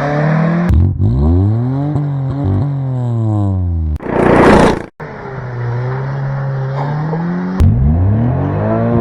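Car engine revving up and down in quick edited cuts, the pitch rising and falling, with a loud rushing burst about four seconds in.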